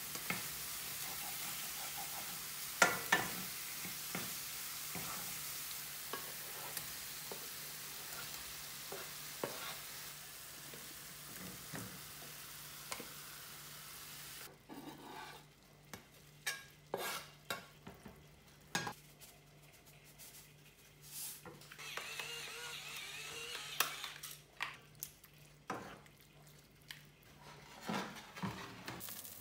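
Diced courgette sizzling in olive oil in a frying pan, with knocks as garlic is pushed off a cutting board with a knife. About halfway the sizzle drops away suddenly, and a wooden spoon knocks and scrapes against the pan as diced ham is stirred through.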